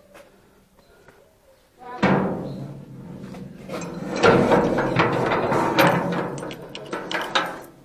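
Rusty sheet-iron yard gate shut with a loud ringing clang about two seconds in, followed by a run of metallic clanks and rattles as its sliding bolt is shot and a padlock is handled against the iron.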